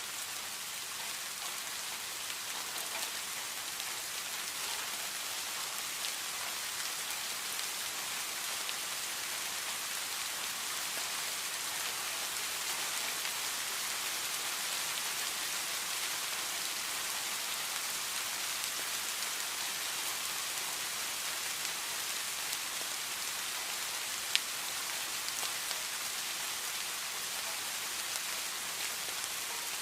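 Heavy rain falling steadily, a dense even hiss of drops with fine patters of individual drops, and one sharp drop-tick about three-quarters of the way through.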